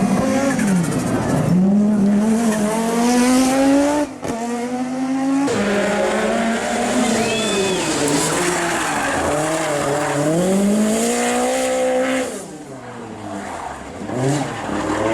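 Rally car engine driven hard, its pitch climbing and falling back repeatedly as it revs through gear changes, with tyres sliding and skidding. About twelve seconds in the engine lifts off and quietens briefly, then picks up again.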